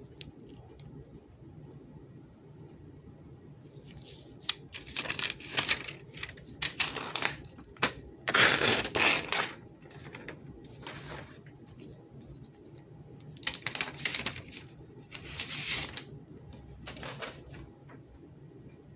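iPad packaging being opened, rustling and tearing in a series of short noisy bursts, the loudest about eight to nine seconds in.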